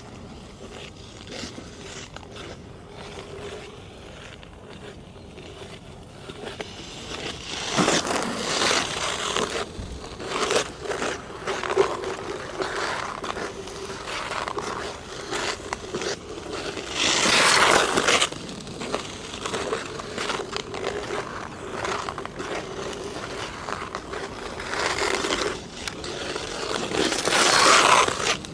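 Ice skate blades scraping and cutting across hard natural black ice in uneven strokes. It starts quieter, then comes in louder about eight seconds in, with the longest, loudest scrapes a little past halfway and near the end.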